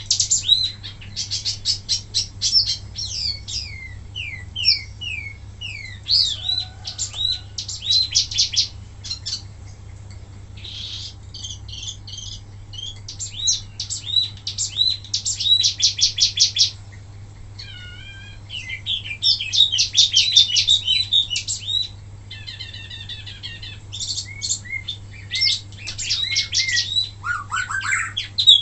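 Wambi mini songbird singing in bursts of fast, high trilled notes mixed with short sweeping whistles, each burst a second or two long with brief pauses between. This is the rapid 'tembakan' song kept as tutor song for other birds. A steady low hum runs underneath.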